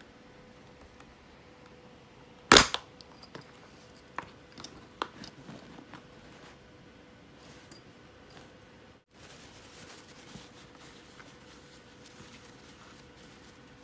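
Plastic visor base plate of a Shark Ridill helmet being worked by hand: one loud sharp snap about two and a half seconds in, then a run of lighter plastic clicks over the next few seconds and a few more a little later.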